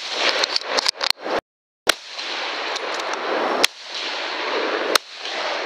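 Rifle shots at running hogs: a string of sharp cracks, the strongest spaced a second or two apart, over a steady rushing noise. The sound cuts out to silence for a moment about a second and a half in.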